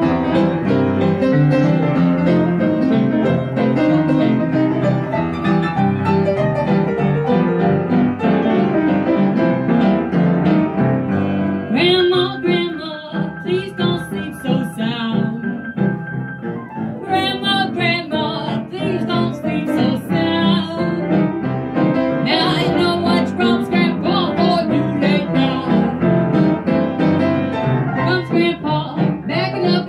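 Upright piano playing alone for about twelve seconds, then a woman's singing voice joins over it, sung into a microphone, with the piano going on underneath.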